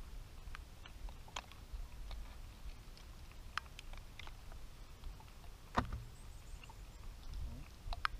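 Quiet sounds aboard a bass boat on the water: a steady low rumble of wind and water against the hull, scattered small clicks and taps of fishing tackle being handled, and one louder knock just before six seconds in.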